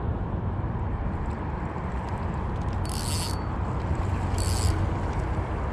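Spinning reel being wound in two short spells of whirring, one about three seconds in and a shorter one a second and a half later, over a steady low wind rumble.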